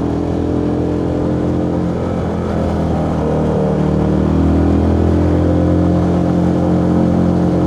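Benelli TRK 251's single-cylinder engine running steadily while under way. The engine note shifts slightly about three seconds in, then grows a little louder.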